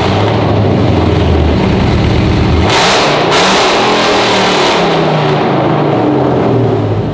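Supercharged V8 of a Ford F-150 Raptor, straight-piped off the headers, running loud and being revved. There is a sharp blip of revs about three seconds in, then the engine speed rises and falls.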